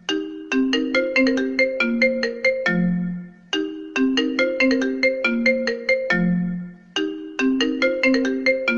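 iPhone ringtone playing: a short melody of quick struck notes that ends on a longer low note, the phrase repeating about every three and a half seconds.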